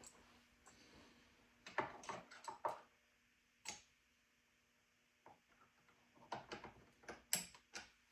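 Scattered light clicks and taps from handling a Homelite XL chainsaw while taking up a little slack in its chain, with a hush about halfway through and a quicker run of clicks near the end.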